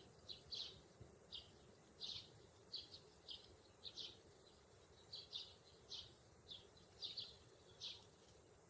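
Sparrows chirping: many short, high chirps in an uneven series, two or three a second.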